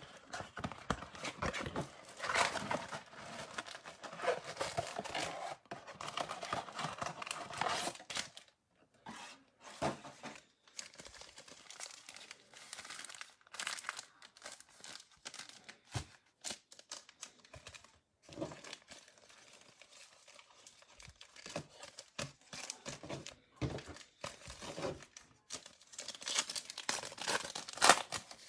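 Plastic wrapping crinkling and tearing as a trading-card blaster box and its foil card packs are opened: dense crinkling for the first eight seconds or so, then scattered short rustles and clicks.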